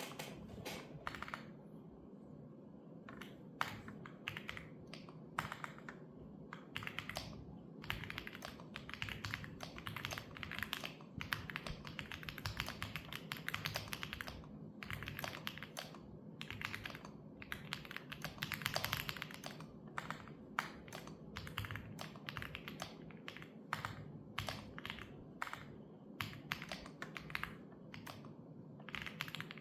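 Computer keyboard being typed on: fast runs of key clicks with a few short pauses.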